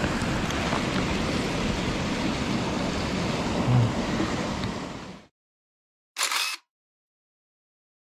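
Shallow mountain stream rushing and splashing over rocks, a steady noise that cuts off abruptly about five seconds in, followed by silence broken once by a brief half-second burst of the same noise.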